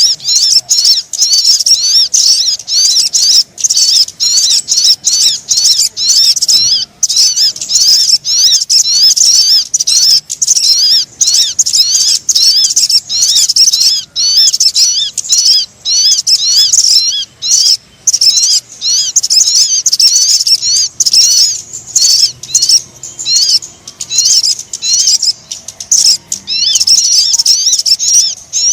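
Lure recording of sogon birds calling: dense, rapid high-pitched chirping and twittering, almost without pause, with brief breaks about a quarter and two-thirds of the way through.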